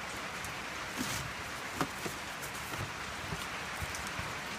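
Light knocks and taps of cardboard firework tubes being handled and pushed into place in a cardboard box, scattered a few times over a steady background hiss.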